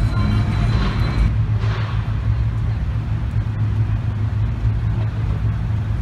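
Car engine and exhaust giving a steady low rumble as a lowered car drives slowly past.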